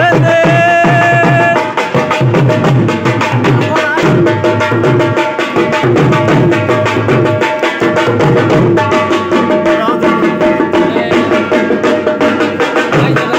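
Dhol, a double-headed barrel drum, beaten with sticks in a fast folk rhythm, with held melodic tones over the drumming.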